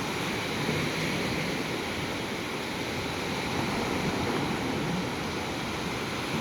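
Gulf of Mexico surf washing on the beach: a steady, even rush of water noise.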